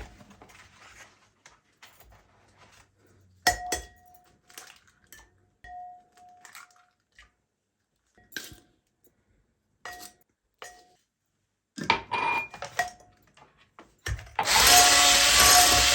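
A string of light clinks and knocks, several with a short ringing tone, as of kitchenware being handled. Near the end a small electric motor starts up loudly and runs steadily.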